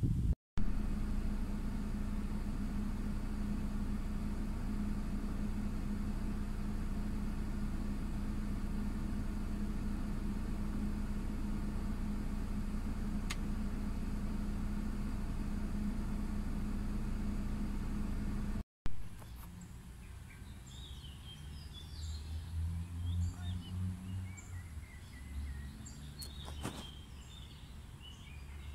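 A steady mechanical hum with a constant tone. After a cut about two-thirds in come short bird chirps over a low, uneven rumble.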